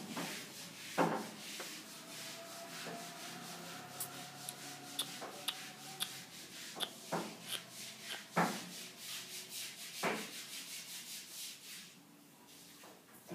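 Close rubbing and rustling with scattered clicks and a few louder knocks, dying down near the end.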